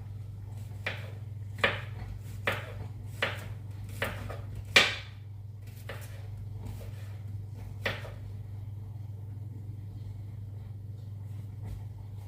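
Kitchenware clattering: about seven sharp knocks and clinks, most of them under a second apart, the loudest and ringing slightly about five seconds in, and a last one near eight seconds. A steady low hum lies under them.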